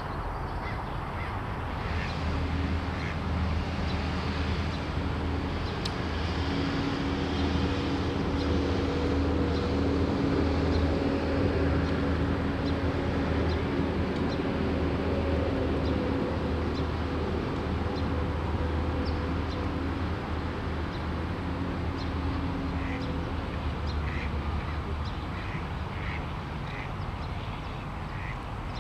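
Waterfowl calling, Canada geese and ducks giving short honks and quacks, clustered near the start and again near the end, over a steady low engine hum that holds through most of the middle.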